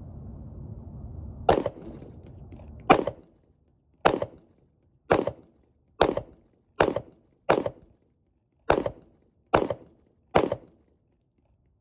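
Springfield XDM Compact pistol firing ten shots in a steady string, each a sharp crack with a short tail, spaced roughly a second apart and a little quicker in the middle.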